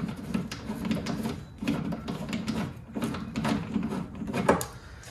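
Hand-lever rivet-nut (nutsert) tool being squeezed hard to set a rivet nut in a Jeep's sheet-metal body: repeated creaking and clicking of the tool in strokes about a second long, stopping shortly before the end.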